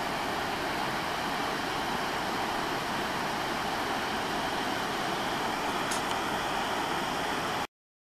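Tia Falls, a tall waterfall, giving a steady rush of falling water that cuts off abruptly near the end.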